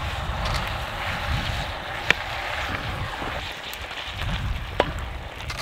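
Wood campfire under a cast-iron Dutch oven: a steady sizzling hiss over a low rumble, with two sharp pops, one about two seconds in and one near the end.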